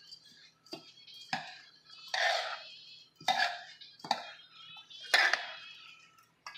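Metal spoon stirring and scraping through rice and pigeon peas in a large aluminium pot, about six short scrapes spaced roughly a second apart.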